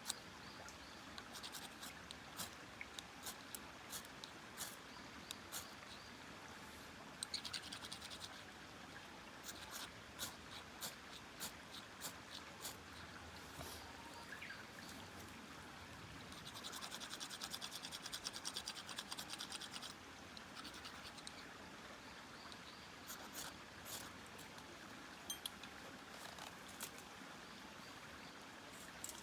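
Scraping strokes and scattered sharp crackling clicks. Two longer runs of rapid scraping come about seven seconds in and again for about three seconds past the middle.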